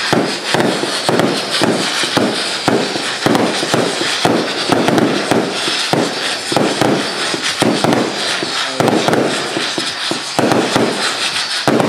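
Firework battery (cake) firing a rapid, continuous string of loud bangs, about three to four a second, with no whistling heard; the whistle effect it was meant to have did not come off.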